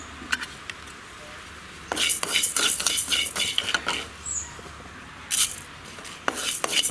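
Wooden spatula stirring raw rice grains around a dry metal kadai, the grains rattling and scraping against the pan in bouts: about two seconds in, briefly near five seconds, and again near the end. The rice is being dry-roasted on a low flame.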